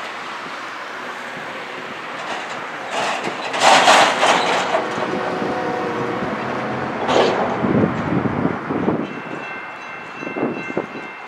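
Approaching freight train led by GE diesel locomotives sounding its horn for the crossing, loudest about four seconds in, over the steady ringing of the crossing's electronic warning bell.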